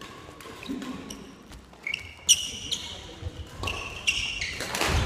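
Badminton doubles rally: sneakers squeaking briefly on the wooden gym floor and racket strikes on the shuttlecock. The loudest is a sharp crack about two seconds in.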